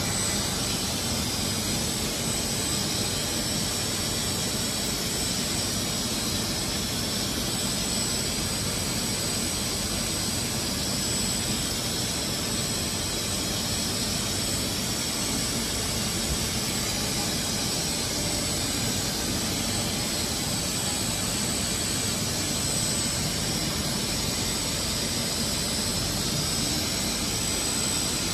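Hermle C40U 5-axis CNC machining center running: a steady rushing noise with a thin, constant high whine over it.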